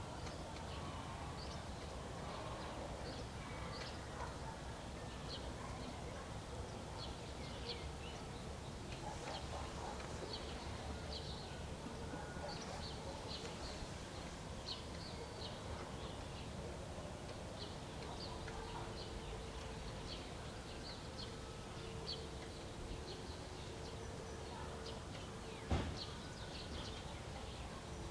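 Rural dawn ambience: many small songbirds chirping and singing throughout, over a steady low rumble of breeze. One sharp knock near the end.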